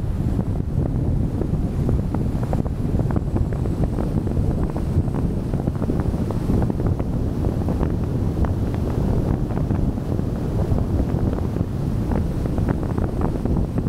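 Wind buffeting the microphone of a camera mounted outside a moving car, over steady tyre and road rumble at cruising speed: a constant low rushing with small crackles throughout.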